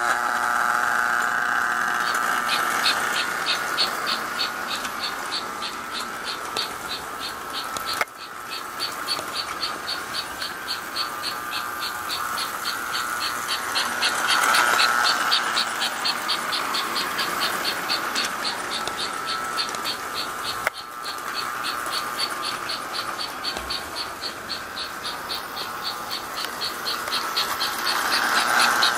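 American Flyer 21168 S gauge toy steam locomotive running on its track: its motor hums while its chugger gives a rapid, even chugging, starting a couple of seconds in. The sound swells twice as the train passes close, midway and near the end, with a couple of single clicks between.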